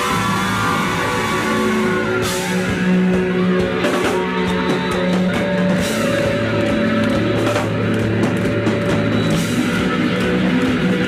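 A live rock band playing an instrumental passage: a distorted electric guitar lead with sustained, bent notes over bass guitar and drums, with cymbal crashes every couple of seconds.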